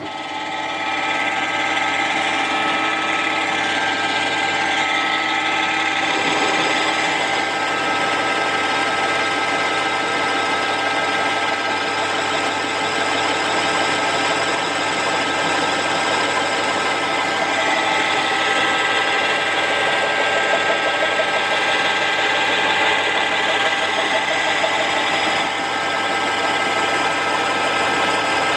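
BVB 25 long-bed lathe starting up and running steadily, its drive and gearing giving a steady whine with several tones, while a boring bar line-bores a 32 mm hole through a steel block.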